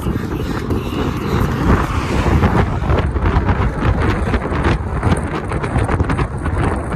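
Strong, gusty wind buffeting the microphone of a camera on a moving bicycle: a loud low rumble, with rapid crackling buffets from about three seconds in.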